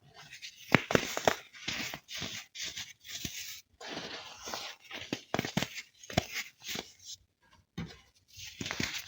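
Crisp blocks of dried baking soda being broken and crushed, crunching and crumbling with dense crackles and sharp snaps in bursts of about a second each, with a short pause about seven seconds in.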